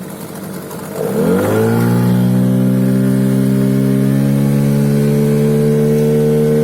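HANGKAI 9.8 outboard motor speeding up about a second in, then running under way with a loud, steady whistle whose pitch creeps slowly upward. The owner suspects the whistle comes from the new 8.5x9 propeller.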